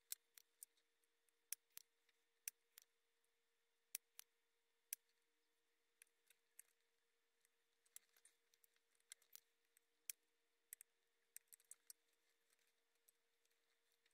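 Faint, irregular crackling clicks from flux popping and spitting as a soldering iron heats old solder joints on a keyboard circuit board, roughly one or two a second, over a faint steady hum.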